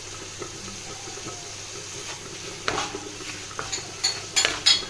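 A spoon stirring a thick coconut, sugar and grated carrot mixture in a hot pan, with a steady low sizzle. From about halfway there are scrapes and sharp knocks of the spoon against the pan, loudest near the end.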